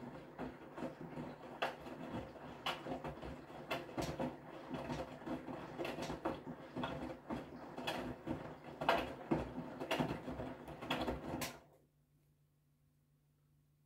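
Whirlpool FreshCare+ front-loading washing machine in its wash phase: the drum turns and wet laundry tumbles with a sloshing sound and scattered sharp clicks. It stops suddenly about two seconds before the end, leaving only a faint low hum.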